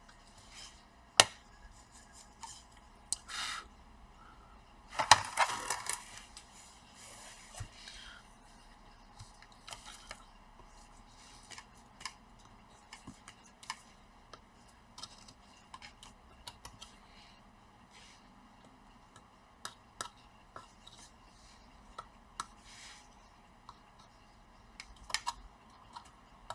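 Scattered small clicks and taps of hand tools and plastic laptop parts being handled on a work surface, with a brief louder scrape or rustle about five seconds in.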